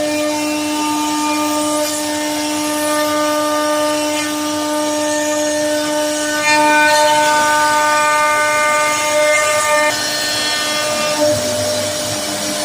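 CNC router cutting wood, its spindle giving a steady whine made of several stacked tones. The whine shifts about halfway through and again near the end.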